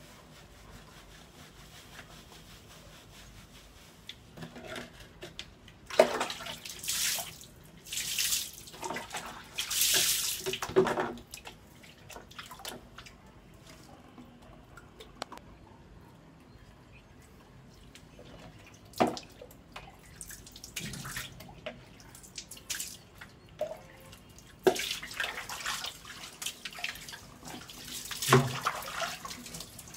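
Water poured from a plastic mug over a wet dog and splashing onto a tiled floor, in several bursts a few seconds long with quieter gaps between.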